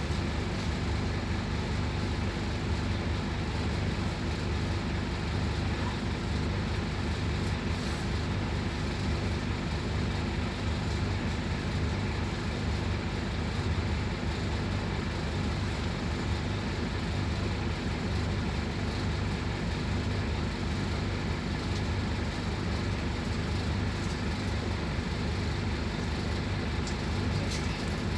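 Scania K280UB articulated city bus running steadily, a low, even engine and road drone with no changes in pitch.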